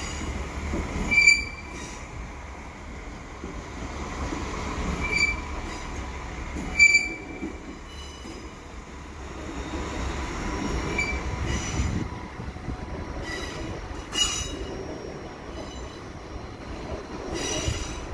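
Regional train rolling slowly past a platform with a steady low rumble, its wheels giving about six short, high-pitched squeals.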